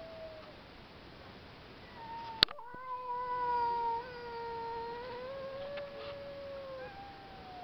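Two cats caterwauling at each other in long, drawn-out yowls, the main one held for about five seconds with slight pitch bends. A sharp click sounds about two and a half seconds in.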